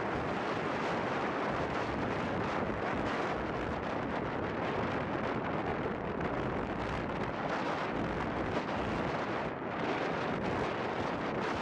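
Strong wind blowing over a compact camera's built-in microphone: a steady rushing and buffeting rumble, with a brief lull near the end.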